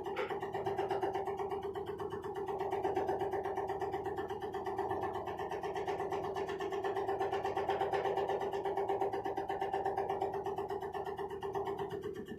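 Automatic tobacco shredding machine running: a steady motor hum with a fast, even chopping pulse.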